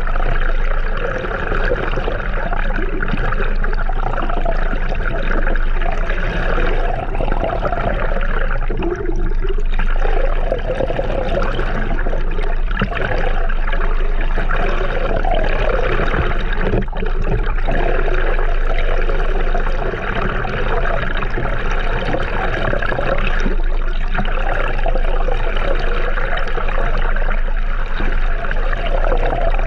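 Water rushing and gurgling steadily close to the microphone, as from a moving boat's wake or a camera held in the water.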